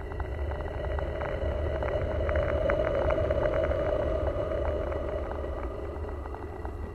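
A steady low rumble with a humming band that grows louder for a few seconds in the middle, under faint steady high tones and scattered crackles.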